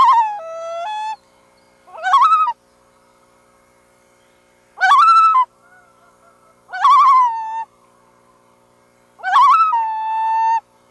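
Loon calling five times, about two seconds apart. Each call opens with a quavering rise, and several settle into a held or stepped note, the last one the longest.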